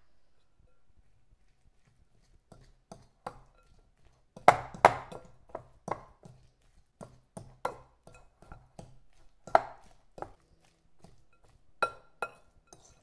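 A utensil knocking and clinking against a glass mixing bowl at uneven intervals as baked potato is mashed and stirred with yogurt, starting after a couple of quiet seconds.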